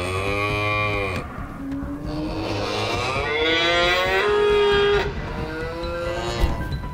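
Cows mooing: several moos one after another, the longest in the middle of the run.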